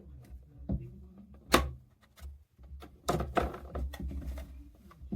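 Scattered knocks and clunks of things being handled, the sharpest about a second and a half in and a quick run of them around three seconds in, over a faint low hum.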